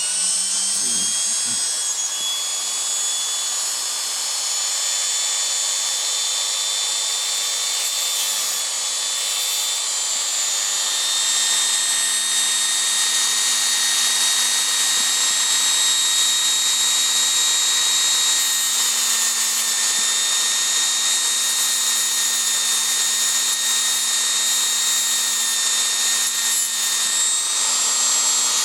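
Small high-speed rotary tool running with a steady high whine as it files down the small rear wing of a 1:64 model car. It gets a little louder about eleven seconds in.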